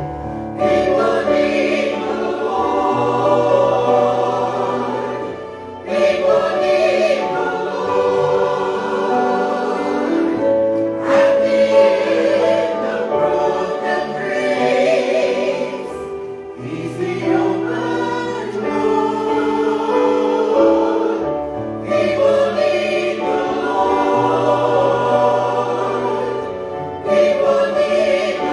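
Congregation or choir singing a hymn with keyboard accompaniment, in phrases with short breaths between lines.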